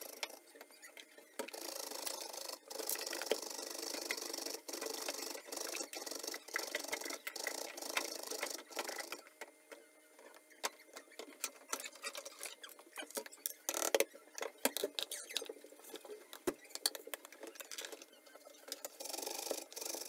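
Vegetables grated on a stainless steel box grater over a wooden board: a run of rapid rasping strokes as a carrot is grated, then several seconds of scattered taps and scrapes, with steady grating starting again near the end as a potato is grated.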